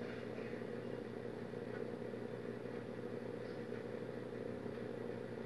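Faint steady low hum of background room noise, even and unchanging, with no distinct sounds standing out.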